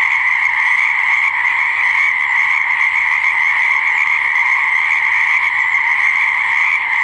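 A chorus of many frogs calling at once, forming a steady, unbroken high-pitched din with no pauses.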